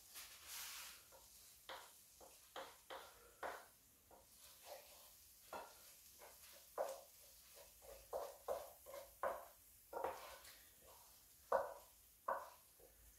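A wooden spoon scrapes and knocks against a frying pan as an egg omelette is pushed around and slid out onto a plate. The sound is a string of short, irregular scrapes and taps.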